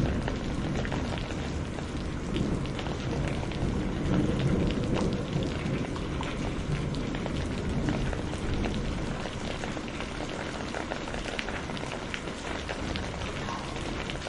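Heavy rain falling steadily, with many separate drops striking close by. A low rumble of thunder swells about two seconds in and fades out over the next several seconds.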